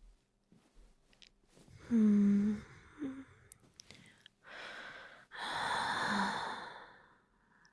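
A woman's short soft hum, then two long breathy exhales, the second a sigh with a brief voiced note in it.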